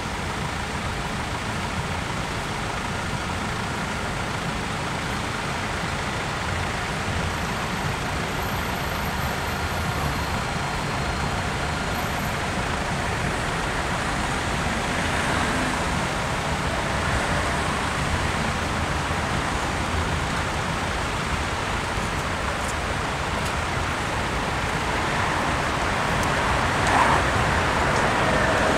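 Steady street and traffic noise as a tram rolls slowly in and stops at the platform, with a brief louder sound near the end.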